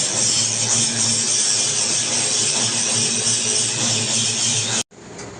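Stick welding arc crackling and hissing steadily, cutting off suddenly near the end.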